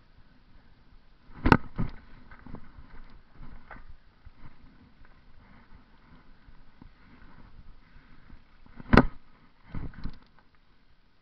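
Bicycle rolling over concrete sidewalk slabs, with two sharp knocks about seven seconds apart, each followed by a lighter knock, and light rattling between them: the bike and camera jolting over joints in the pavement.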